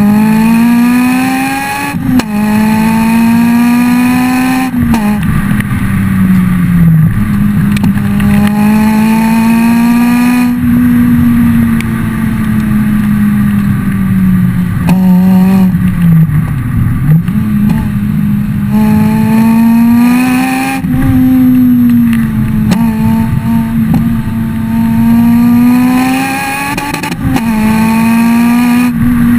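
Honda Civic EP3 Type R's four-cylinder engine revved through a Fujitsubo RM-01A cat-back exhaust with no catalytic converter: the pitch climbs, holds high, then falls, over and over. Sharp pops come from the exhaust as the revs drop, the overrun backfires that shoot small flames from the tailpipe.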